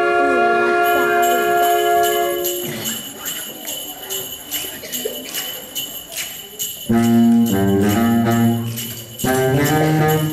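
Sleigh bells shaken in a steady rhythm within a symphony orchestra: first under a held chord of strings and winds that ends about two and a half seconds in, then nearly alone, until the full orchestra with brass and bass comes back in with short phrases about seven seconds in and again near the end.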